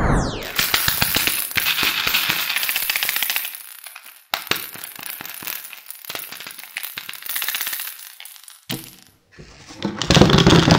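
Plastic flower-shaped toy lollipop rattling and clicking as it is turned and shaken in the hands: dense fast rattling for about three seconds, then sparser clicks. A louder, lower sound comes in near the end.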